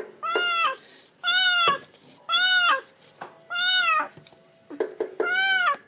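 A kitten trapped inside a steel pipe meowing for help: five repeated meows, each rising and then falling in pitch, about a second apart. A couple of light taps come shortly before the last meow.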